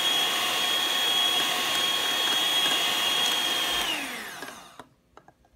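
Electric hand mixer running steadily, its twin beaters whipping thick cream and condensed milk in a glass bowl, with a steady high motor whine. Near the end it is switched off and the whine falls in pitch as the motor spins down, followed by a few faint clicks.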